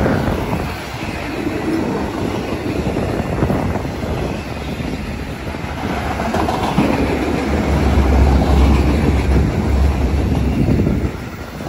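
Freight train rolling past, its wheels clacking over the rails, with a heavier low rumble building in the second half and easing just before the end.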